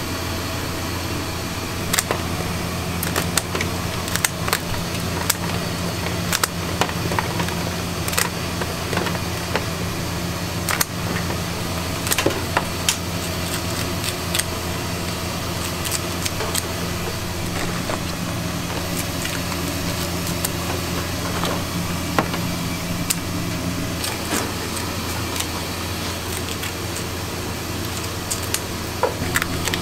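Kitchen scissors snipping and cracking through the shells of steamed king crab legs: a string of irregular sharp clicks and crunches. Under them runs a steady low machine hum.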